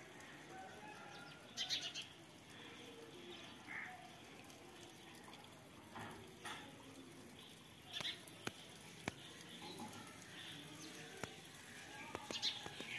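Faint outdoor morning ambience with scattered short bird calls and chirps every couple of seconds, and a few sharp clicks in the second half.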